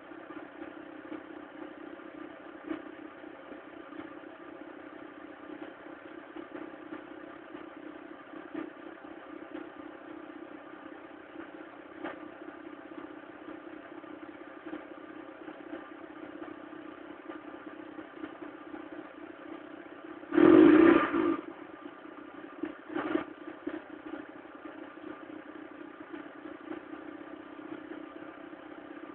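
Mk3 1.4 'mono' single-point-injection petrol engine running steadily at idle with a rough, clattering note that the owner calls a bad, tractor-like sound. About two-thirds of the way through, a brief loud burst rises over it, and a smaller one follows about two seconds later.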